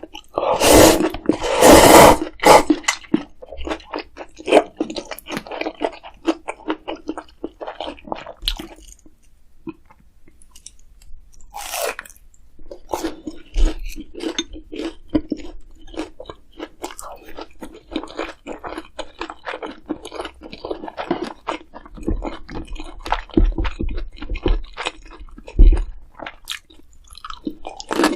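Close-up chewing of crunchy food, with crisp crunching bites; a loud burst of crunching in the first couple of seconds, then steady chewing with a short lull about ten seconds in.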